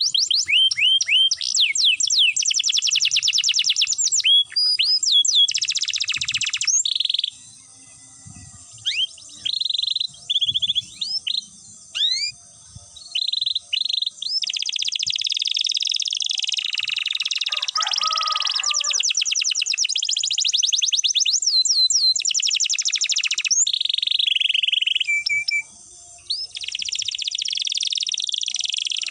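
Domestic canary singing long rolled trills, fast runs of repeated notes broken by short pauses and single rising chirps.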